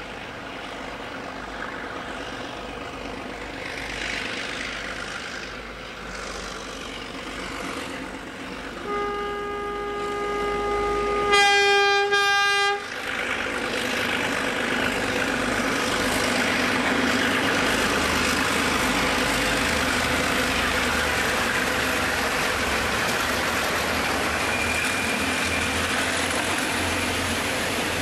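Several NSW 48 class Alco diesel locomotives working a freight train, their engines running under load. About nine seconds in the locomotive horn sounds a steady chord that grows much louder for about a second and a half and cuts off sharply. After that comes the steady, louder noise of the locomotives and then the long line of wagons rolling past close by.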